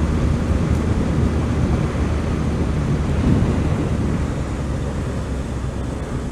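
Motorcycle riding at road speed: wind rushing over the microphone with the engine's low drone underneath, getting a little quieter near the end.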